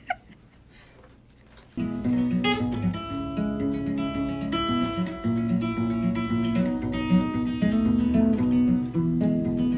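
Acoustic guitar music that starts about two seconds in, after a quiet moment, with a run of clear single notes over low bass notes.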